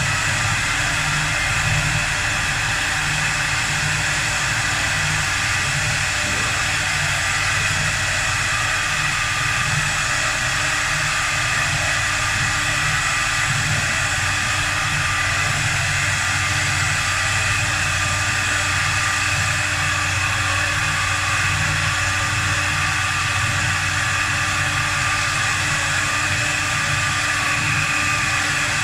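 A 4-axis CNC wood lathe running and turning a wooden sofa leg: a steady, unbroken machine noise with a low hum under a hiss.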